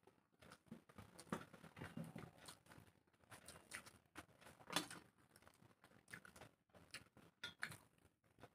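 Faint eating sounds: fingers working rice on steel plates and chewing, heard as a scatter of soft clicks and rustles, the loudest a little past halfway.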